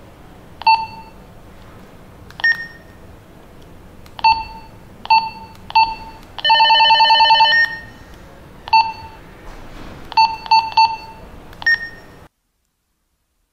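Retevis RT33 walkie-talkie key-press beeps: about ten short electronic beeps as its buttons are pressed, with a rapid warbling trill lasting about a second midway. The sound cuts off abruptly near the end.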